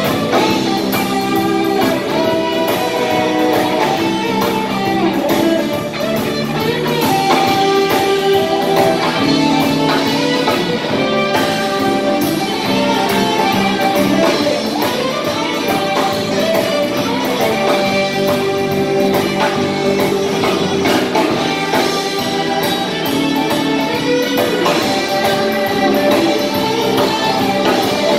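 Live band playing an instrumental number: electric guitars to the fore over electric bass, keyboard and a drum kit keeping a steady beat.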